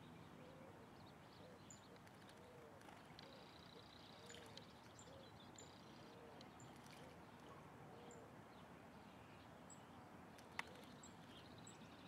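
Faint background birdsong: a run of short, low, arched call notes about twice a second, a brief higher trill, and scattered high chirps. One sharp click near the end stands out above the rest.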